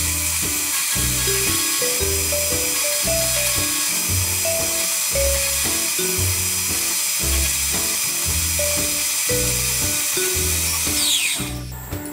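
Background music with a steady bass beat plays over a milling machine whose spindle whines at high pitch as an end mill cuts a pocket in a cast iron casting. Near the end the whine falls in pitch as the spindle winds down to a stop.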